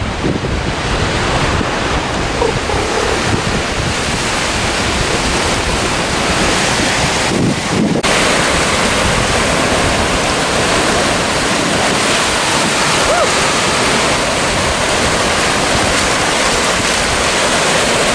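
Ocean surf breaking and washing in over rocks at the shoreline, a steady loud rush, mixed with wind buffeting the microphone.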